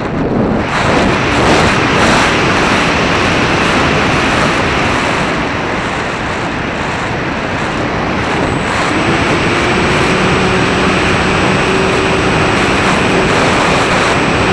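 Wind rushing over a camera mounted on a BF-109 "Fun Fighter" RC model plane in flight, mixed with the running motor and propeller. A steady propeller hum of two low tones and a higher whine stands out from about nine seconds in.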